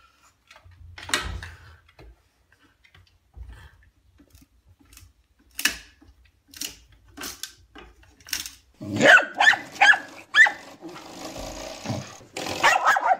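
A few sharp wooden knocks, as a stick carried crosswise bumps against a door frame, then from about nine seconds in a dog growling and barking in short, rapid bursts.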